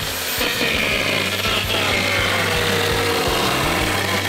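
Homelite chainsaw running and cutting into a white silhouette target board, its pitch dipping as the chain bites into the cut.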